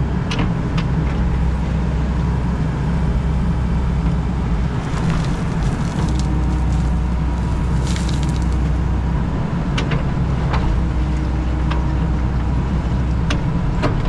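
Excavator's diesel engine running steadily as heard from the cab, with the hydraulics working the boom and bucket, cold and slow to respond. Scattered sharp knocks and a short hiss about eight seconds in.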